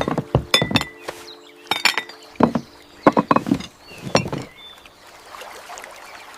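Irregular clinks and knocks, a dozen or so, some ringing briefly, like cooking gear or wood being handled, over faint background music that fades out partway through.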